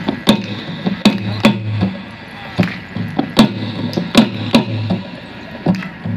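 Dance music played for a traditional folk dance: sharp, wooden-sounding percussion strikes keep a steady beat of roughly two a second, with some strikes louder than others, over low sustained tones.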